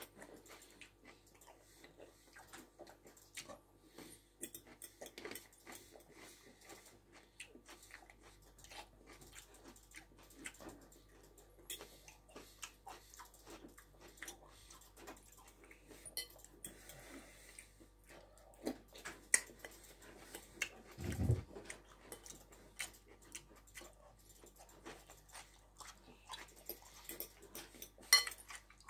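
Chewing and mouth sounds of a person eating, with many light clicks and taps of a fork against a bowl. A single low thump about three quarters of the way through.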